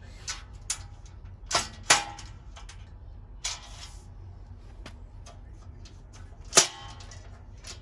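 Sharp metallic clicks and knocks as the steel parts of a welding table are handled and fitted by hand, with a short scrape near the middle and a louder clack about two-thirds of the way in.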